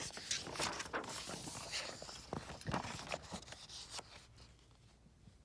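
Paper rustling and crinkling as the pages of a paperback picture book are handled and turned, dying down after about four seconds.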